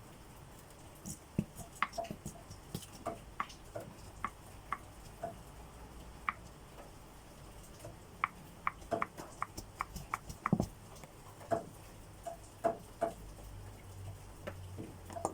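Faint scattered taps and clicks at irregular intervals over a low steady hum.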